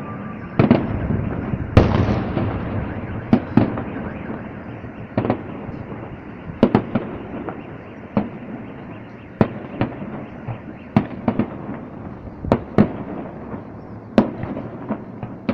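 Aerial firework shells bursting in an irregular string of sharp bangs, about one or two a second, over a continuous rumble from the display.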